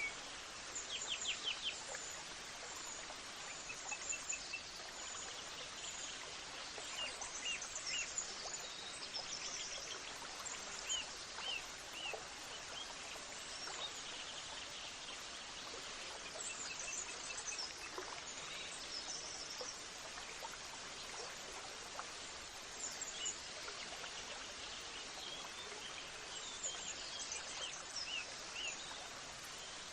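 Many birds chirping and trilling in short, repeated calls over a steady background hiss.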